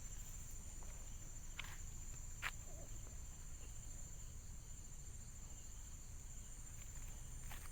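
Crickets or similar night insects chirring faintly in one steady high-pitched tone, with two soft clicks a second apart early on.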